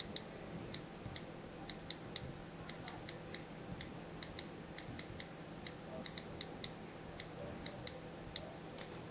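iPad on-screen keyboard key clicks as a web address is typed: quick, irregular ticks, a few a second in little runs, with one sharper click near the end.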